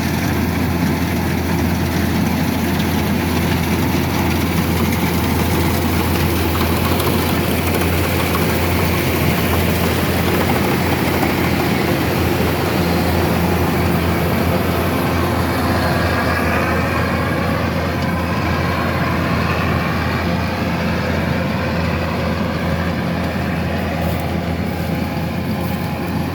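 Kubota DC-108X combine harvester's diesel engine running steadily with a constant low drone.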